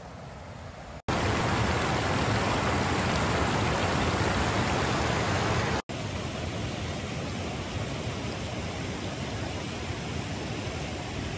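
Salmon Trout River rushing over rocks and log debris below a dam, a steady hiss of water. It jumps louder about a second in, cuts out for an instant near the middle, then carries on a little quieter.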